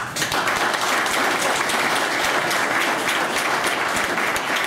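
Audience applauding: dense, steady clapping from a roomful of people that starts suddenly.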